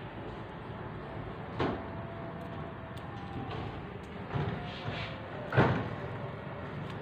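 Lemons being picked by hand from a lemon tree: three short, sharp sounds of branches, leaves and fruit being handled, the last one the loudest.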